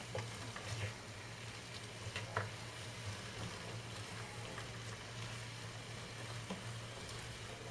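Beef liver, onions and red pepper sizzling gently in a frying pan, with a few light clicks of stirring against the pan. A steady low hum runs underneath.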